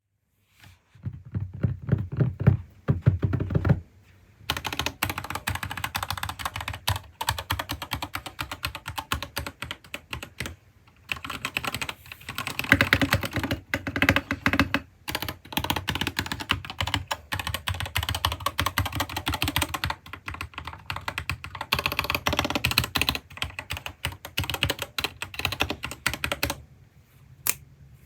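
Gamakay TK68 mechanical keyboard being typed on fast and continuously, keystrokes clattering in long runs broken by a few brief pauses. The first few seconds sound muffled and bassy, with little treble, before the typing turns full and bright.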